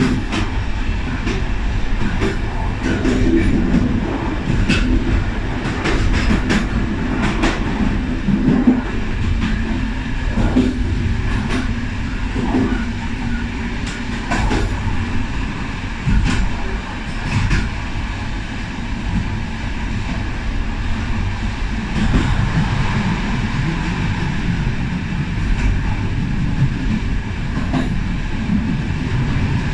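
Railway passenger coach running along the track, heard from the rear end of the last car: a steady rumble of wheels on rails with sharp clicks over joints and points, many in the first half and fewer later.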